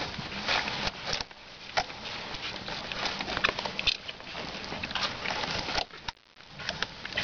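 Two-week-old Boston Terrier puppies squirming and scrabbling in their bedding: irregular rustling and scratchy ticks, with a brief lull about six seconds in.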